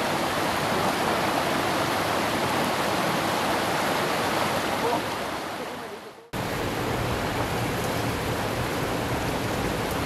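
Steady rush of flowing mountain stream water over rocks. The sound fades down about six seconds in, breaks off for a moment, then a similar steady rush of water resumes.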